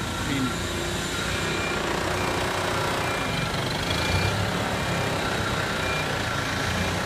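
New Holland telehandler's diesel engine running as it drives past close by, with its reversing alarm beeping in a regular high-pitched series over the engine.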